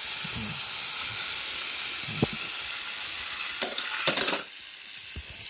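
Battery-powered Thomas & Friends toy engines whirring with a steady high hiss, with a few plastic clunks as they are handled. The whir cuts out about four and a half seconds in.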